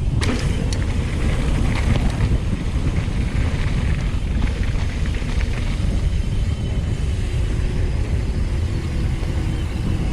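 Wind buffeting the microphone over a steady low rumble, as from a mountain bike ridden fast down a dirt jump trail, with a few sharp clicks and rattles in the first half.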